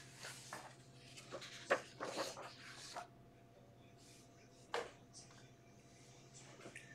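Faint room tone: a steady low hum with a few soft, scattered clicks and knocks, mostly in the first three seconds and once more near the five-second mark.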